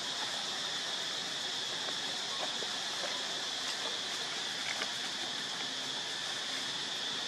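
Steady, high droning hiss of forest insects such as cicadas, with a few faint short calls over it.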